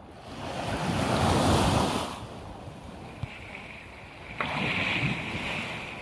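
Small sea waves washing up on a sandy beach: two swells of surf hiss, each rising and fading over about two seconds, the second starting a little over four seconds in.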